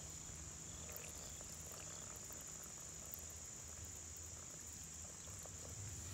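Faint, steady, high-pitched chorus of insects such as crickets, with a few faint clicks.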